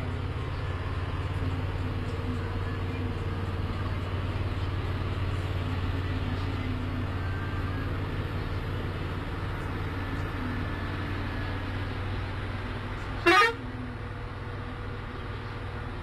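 Tourist bus engine running steadily, with one short, loud air-horn blast about 13 seconds in that rises quickly in pitch.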